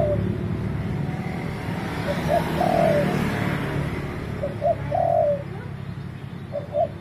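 Spotted dove cooing: repeated phrases of two short coos followed by a longer coo that dips at its end, about every two seconds. A low steady rumble underneath fades over the first few seconds.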